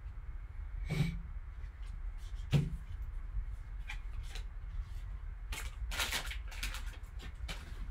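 Trading cards being handled and set down on a table, with a soft knock about a second in and another at about two and a half seconds, then crinkling of a foil card-pack wrapper over the last couple of seconds, over a low steady hum.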